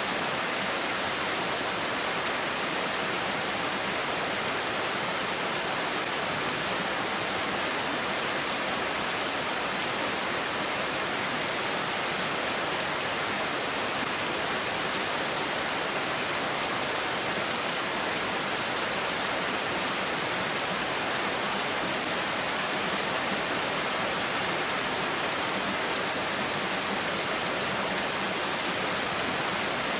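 Steady rain falling, a loud, even hiss with no separate drops or breaks standing out.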